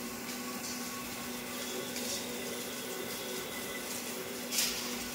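Slitter-rewinder machine running steadily as it slits clear polyester film into narrow rolls: a constant mechanical hum with a steady tone. A short, sharp hiss about four and a half seconds in.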